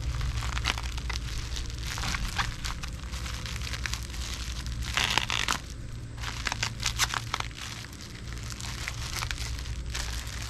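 Bubble wrap and plastic packaging crinkling and crackling in irregular bursts as it is handled and pulled off a package, with a louder burst about five seconds in, over a steady low hum.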